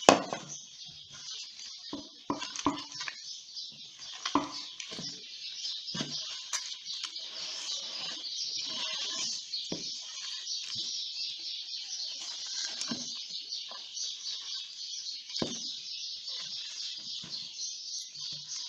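A hand squeezing and pressing crumbly pie-crust dough of flour, shortening and water in a plastic bowl: soft squishing and rustling, with scattered knocks against the bowl, the loudest a sharp thump right at the start. A constant high chirping runs behind it.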